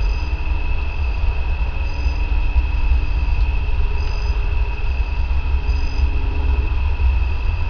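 Night outdoor ambience: crickets trilling steadily on one high pitch over a constant low rumble.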